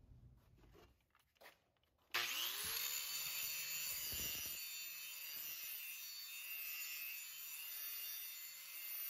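Angle grinder switched on about two seconds in, its motor whining up to speed, then its thin abrasive disc grinding into a steel wrench held in a vise with a steady harsh grinding noise.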